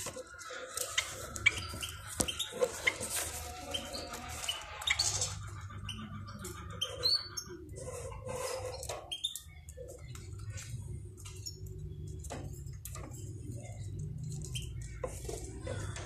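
Java sparrows chirping and clicking in short scattered calls, busiest in the first half.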